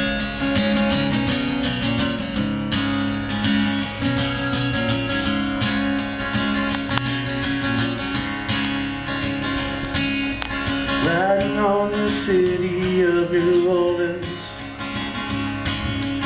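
Solo acoustic guitar strummed and picked in a steady country-folk intro, with a gliding melodic line over the chords about two thirds of the way in.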